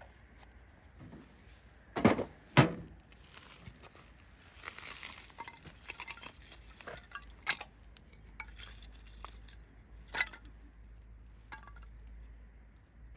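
Metal camp cookware and utensils being handled: two sharp clanks about two seconds in, then scattered lighter clinks and knocks.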